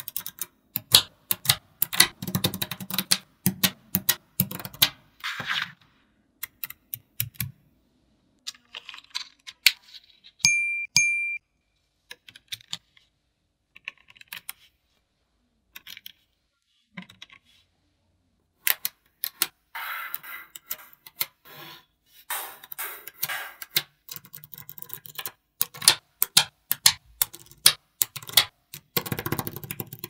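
Small magnetic balls clicking and snapping together as they are placed, in clusters of quick clicks with pauses between. A short ringing tone sounds about ten seconds in.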